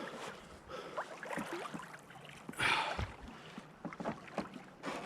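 Water splashing and sloshing around a sea kayak as it is paddled through choppy side-on waves, with one louder splash a little past halfway.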